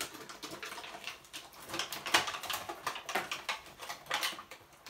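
Plastic and cardboard toy packaging crinkling and crackling as it is handled and opened by hand, a quick irregular run of small clicks.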